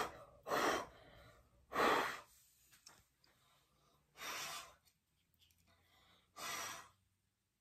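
About five short puffs of breath blowing, a second or two apart, clearing away the dust left by sanding and trimming grip tape.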